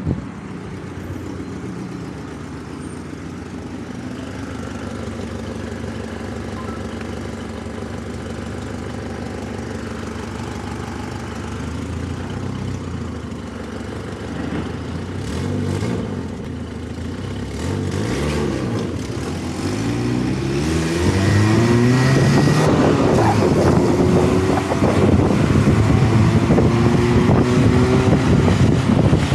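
Electric motorcycle under way, with wind noise on the microphone: a steady hum for most of the time, then, from about two-thirds through, whines that rise and fall in pitch as it speeds up and slows, and the whole gets louder.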